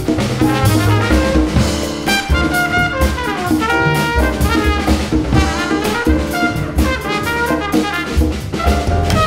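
Small jazz band playing: an open trumpet carries the melody in held and moving notes over plucked upright bass, with drum kit cymbals and hand-played congas behind.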